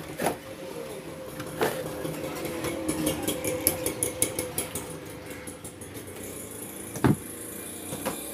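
Cardboard packaging handled as a box insert is lifted out, with a few sharp knocks, the loudest near the end. Behind it a steady droning hum runs until it fades out about five seconds in, with a rapid run of fine ticking in the middle.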